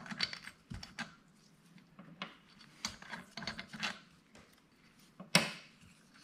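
Loosened bolts being turned out by hand from the aluminium crankcase cover of a 168F small diesel engine: light, irregular clicks and rubbing of metal, with one sharper metallic click about five seconds in.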